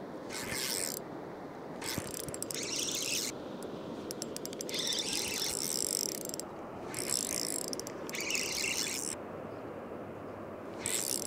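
Fishing reel clicking in about five separate bursts of a second or two each while a hooked white bass is fought and reeled in.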